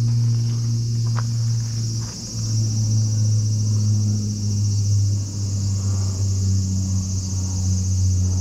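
A steady low engine hum, the loudest sound, dropping slightly in pitch about two seconds in and again about five seconds in, with insects buzzing steadily and high above it.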